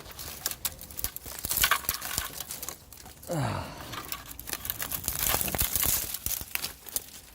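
Crackling and rustling of footsteps and brushing through dry undergrowth, with many sharp crunches. About three seconds in there is a short low sound that falls in pitch.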